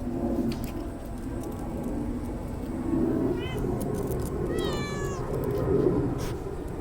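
A cat meowing twice: a short, high meow about three and a half seconds in, then a longer meow that falls in pitch about a second later.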